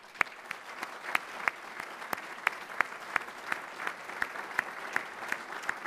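A room of people applauding, with one person's louder claps close to the microphone standing out, evenly spaced at about three a second.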